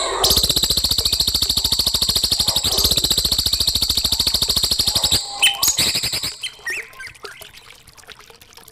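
A songbird sings a long, fast rattling trill of about fifteen notes a second for some five seconds, then breaks into a few short scattered chirps that fade quieter. This is a recorded master song of the kind used to tutor young cage birds.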